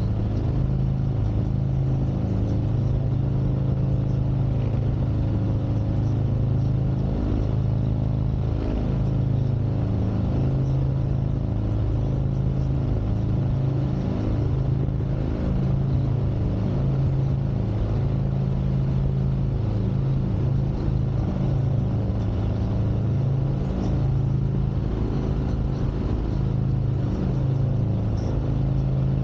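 2021 Harley-Davidson Street Glide Special's Milwaukee-Eight 114 V-twin engine running on the move, a steady exhaust note that rises and falls slightly in pitch as the throttle changes.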